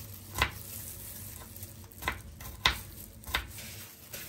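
Kitchen cooking sounds: four sharp clacks of utensils spread through the few seconds, over a steady low hum and a faint hiss.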